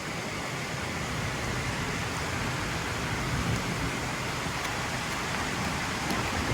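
Steady rain falling, an even hiss with no distinct drops or breaks.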